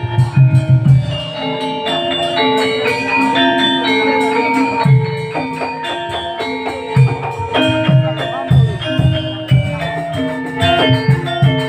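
Live gamelan-style ensemble music: metallophones ring a melody of held notes stepping between pitches, over clusters of deep drum strokes and fast high ticking percussion.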